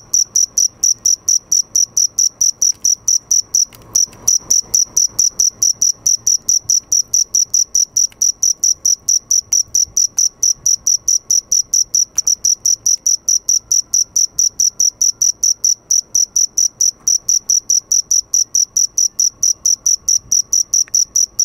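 Male cricket singing close up, its forewings raised: a steady run of short, high-pitched chirps, about four a second, with one brief break about four seconds in.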